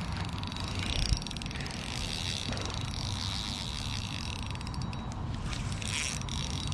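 Spinning fishing reel being cranked to retrieve line, its gears giving a fine, rapid clicking, with a brief knock about a second in.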